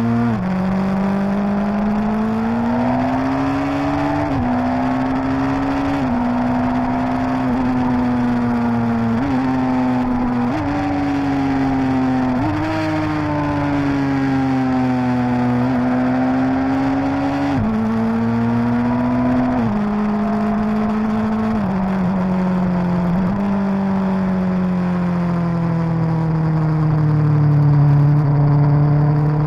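Suzuki GSX-R1000 inline-four engine pulling under load on a winding road. The revs climb and fall with several abrupt pitch steps at gear changes, ending in a long, slow drop in pitch.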